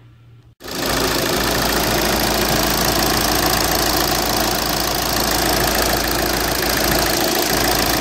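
2009 Volkswagen Jetta TDI's 2.0-litre four-cylinder common-rail diesel (CBEA) running steadily at idle, coming in abruptly under a second in. It is running normally on a fresh set of four glow plugs.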